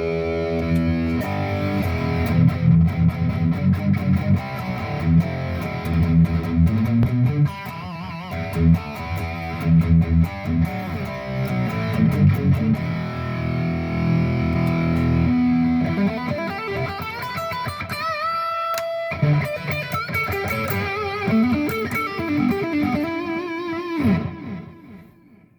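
Heavily distorted electric guitar, a Charvel Strat with Seymour Duncan JB/Jazz humbuckers played through a Boss Katana Artist Gen 3 on high-gain metal patches. First palm-muted, chugging metal riffs, then about two-thirds through a lead line with string bends and vibrato, ending on a held note that fades out.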